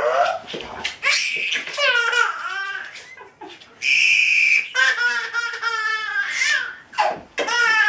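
A baby laughing in a run of high-pitched giggles and belly laughs, with a shrill, steady squeal held for about a second about four seconds in.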